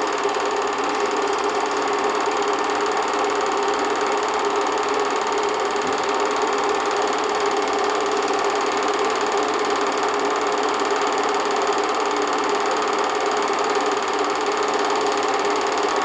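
8mm film projector running with a steady mechanical whir and clatter.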